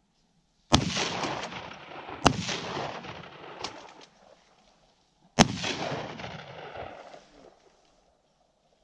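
Shotgun blasts: three loud shots, the second about a second and a half after the first and the third about three seconds later, with a fainter shot between the last two. Each shot trails off in a long rolling echo.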